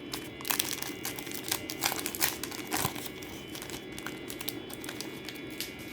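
Crinkling and crackling of a trading-card pack's plastic-foil wrapper being handled and opened, with the sharpest crackles in the first few seconds.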